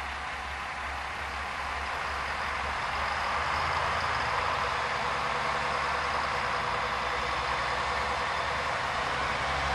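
Diesel railcar engine drawing closer, its low hum and running noise growing steadily louder.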